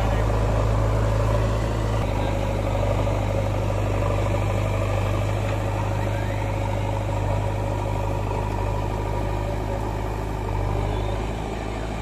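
Diesel engines of a JCB backhoe loader and a tractor running steadily, a low even drone near idle, with a slight change in its note about two seconds in.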